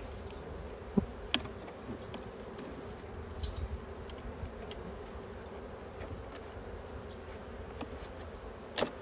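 Honey bees buzzing steadily around an opened, strong colony, with a few sharp knocks about a second in and again near the end.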